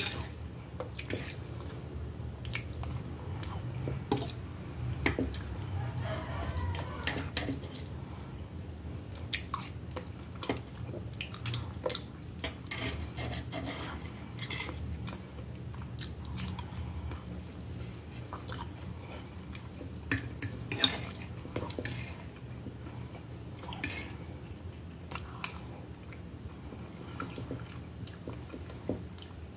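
Close-up eating sounds: a person chewing and biting a plate of stewed beef and soft boiled vegetables, with knife and fork clicking and scraping against the plate many times.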